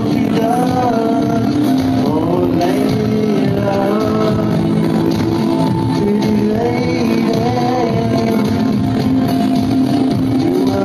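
Live amplified music: a man's voice singing with long gliding, wavering notes over sustained keyboard chords.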